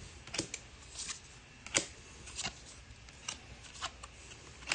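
Baseball trading cards being flipped through by hand, each card slid off the front of the stack to the back: a run of quick, irregular flicks and swishes, the sharpest about two seconds in.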